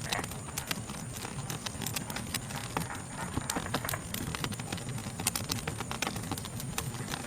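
Wood fire crackling, with irregular sharp pops and snaps over a low rumble of burning, under a steady high-pitched drone of night insects.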